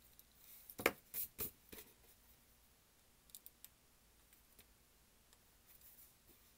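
Handling noise from small tools and 3D-printed plastic parts on a tabletop: a quick run of four sharp clicks and knocks about a second in, then a few faint ticks around three and a half seconds.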